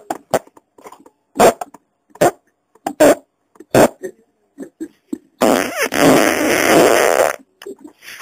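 A human fart: several short sharp sounds in the first half, then one long loud fart lasting about two seconds.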